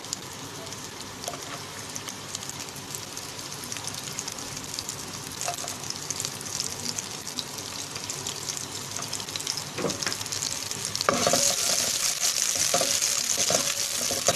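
Chopped onion sizzling in hot oil in a non-stick pan, the crackle growing steadily louder as it heats. From about eleven seconds in a spatula stirs it, adding knocks and scrapes against the pan.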